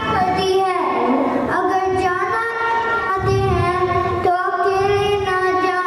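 A child singing into a handheld microphone: a slow melody of long held notes, each about a second, sliding from one pitch to the next.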